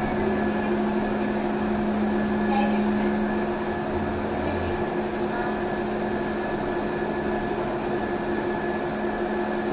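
Trolleybus cabin noise while riding: a steady electrical hum with a faint high whine over a low rumble, with no change in pitch. A short low drone sounds for under a second about four seconds in.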